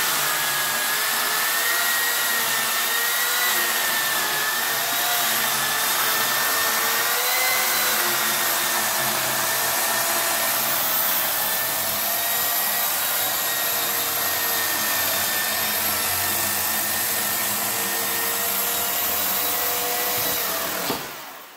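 Corded electric chainsaw running steadily as it cuts through a thick timber beam: a high motor whine over the rasp of the chain, wavering slightly with the load. It cuts off abruptly near the end.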